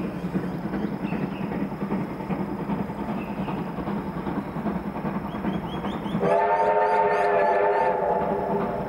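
Approaching heritage train running with a steady rumble. About six seconds in, a locomotive whistle sounds one long chord of several notes for about two seconds, then fades.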